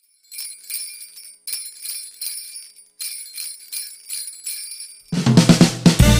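Sleigh bells shaken in a steady rhythm as the opening of a Christmas pop song. The full band, with bass and drums, comes in about five seconds in.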